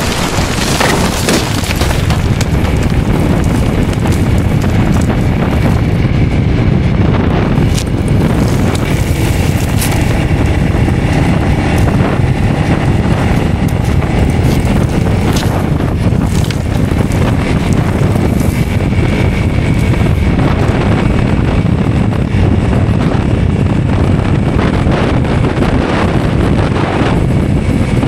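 Wind buffeting the microphone over a steady low vehicle rumble, with a few brief knocks scattered through.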